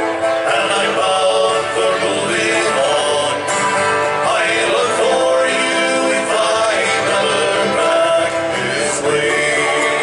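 Live folk song: a man singing with acoustic guitar strumming.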